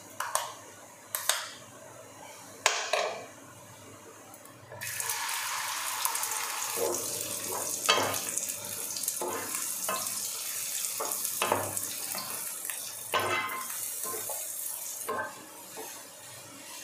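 A spoon clinks against a steel bowl a few times. About five seconds in, a loud, steady sizzle starts as beaten egg hits hot oil in a frying pan, with a wooden spatula scraping and knocking in the pan; the sizzle dies down near the end.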